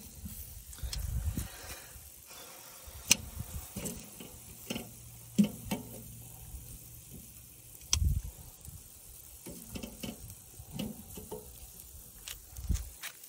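Metal tongs clicking and scraping against a Weber kettle grill's cooking grate as ribs are flipped: irregular sharp clicks and knocks, with a few low rumbles in between.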